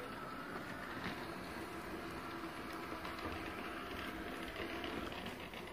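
Coredy robot vacuum running in mopping mode: a steady low motor hum and whir as it drives across the floor wetting it with its mop cloth, with a small click at the very start.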